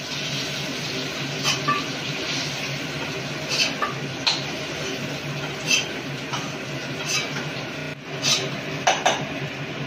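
A metal spatula clinking and scraping against a metal karahi as fried potato pieces are lifted out of hot oil into a steel bowl. There are about eight sharp clinks over a steady frying hiss.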